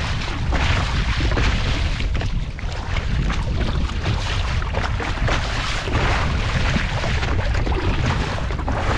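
Storm wind buffeting the microphone in a steady low rumble, with choppy sea splashing around a fishing kayak in irregular surges.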